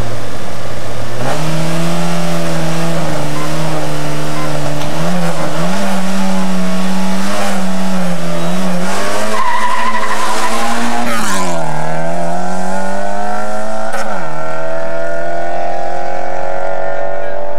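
Rally car's four-cylinder engine held at high, wavering revs on the start line, then launching with a tyre squeal about ten seconds in. It accelerates hard away through the gears, with the revs rising, dropping sharply at an upshift, and climbing again.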